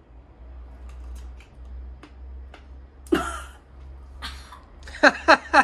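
A person chewing a pickled Cheongyang chili pepper with faint crunching clicks, then coughing and sputtering at its heat about three seconds in, with a breathy puff a second later. Bursts of laughter near the end.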